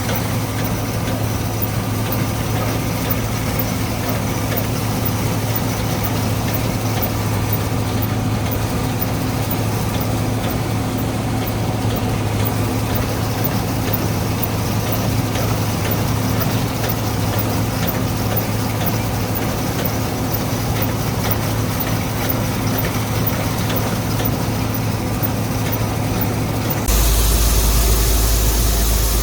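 John Deere 4400 combine's engine running steadily with a low, even hum. About 27 s in the sound changes abruptly to a louder low rumble with more hiss.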